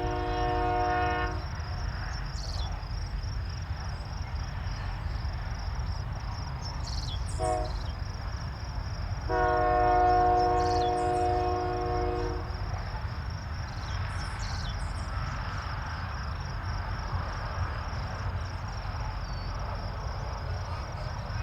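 Freight locomotive horn: a long blast ending about a second in, a short toot near 7 seconds, then a long blast of about three seconds, in the long-short-long run that closes a grade-crossing signal. A steady low rumble runs underneath, with insects buzzing high and steady.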